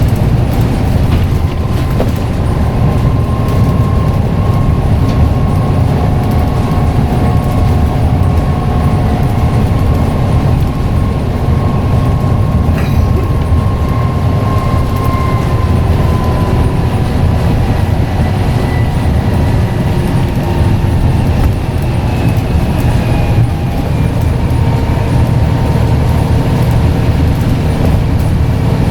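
Scania N94UD double-decker bus running under way: a steady low engine and road rumble with a high whine over it that eases down a little about halfway through.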